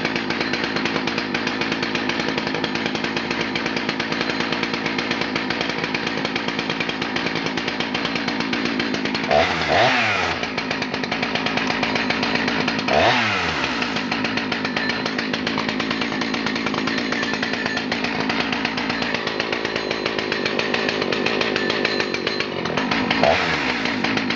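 Husqvarna 288 XP 87cc two-stroke chainsaw idling steadily, with three quick throttle blips whose pitch jumps up and falls back to idle: the first two about four seconds apart in the middle, and the third near the end.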